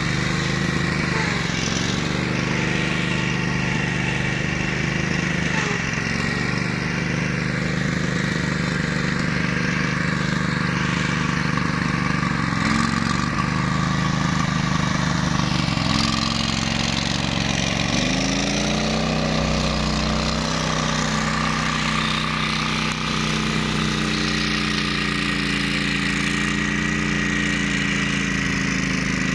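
Engine of a ride-on flail mower running continuously. Its speed shifts a few times, dropping and then picking back up most clearly about two-thirds of the way in.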